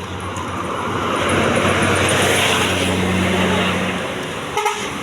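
A bus driving past close by: engine and tyre noise swell, hold with a steady low engine note, then ease off. A short horn toot sounds near the end.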